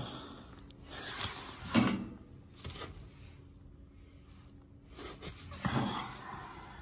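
Handling noises: a handful of soft knocks and scrapes, the loudest about two seconds in, as a gloved hand feels around the copper pipes behind a baseboard heating convector's grille.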